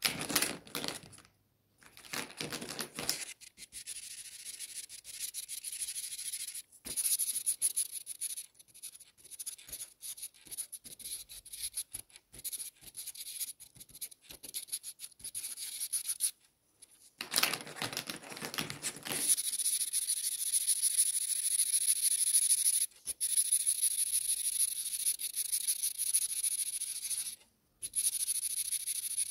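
Felt-tip marker colouring on paper: a dry, scratchy rubbing of quick back-and-forth strokes. Near the start and again just past the middle come a couple of louder, fuller rustles as markers are handled and swapped.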